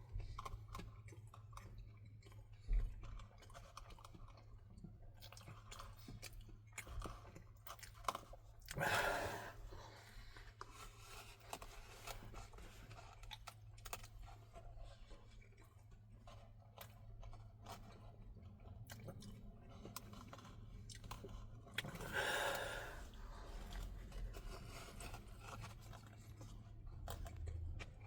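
A person chewing fast food close to the microphone, with wet, crunchy mouth sounds and small clicks. Twice a louder rush of noise lasting about a second stands out over the chewing.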